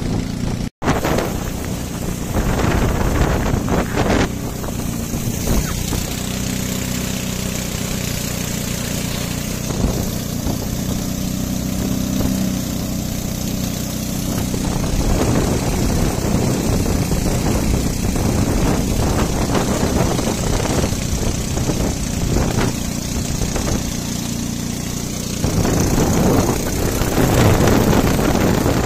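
Motorboat engine running steadily at speed, with water rushing along the hull; it swells louder near the end.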